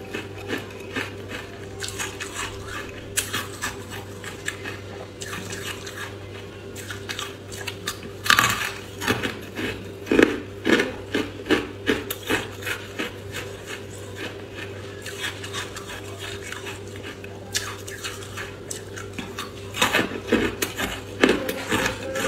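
Carbonated ice being bitten and chewed: brittle, bubble-filled frozen ice crunching and crackling in irregular sharp snaps. The loudest bites come about eight seconds in, around ten seconds and near the end, over a steady low hum.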